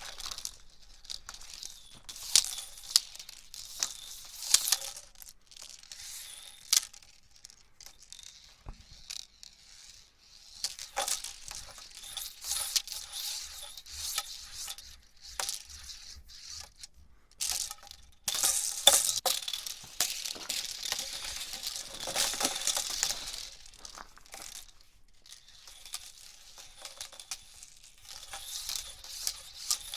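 Hula hoop being spun, giving a rattling, clicking swish that comes and goes in spells; it is densest and loudest through the middle of the stretch, with quieter gaps of a few seconds between spells.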